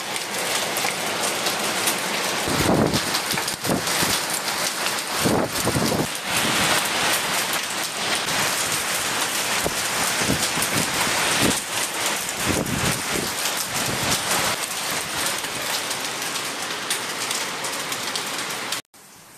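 Loud hailstorm: a dense, continuous clatter of hailstones pelting down, with heavier surges a few times. It cuts off suddenly near the end.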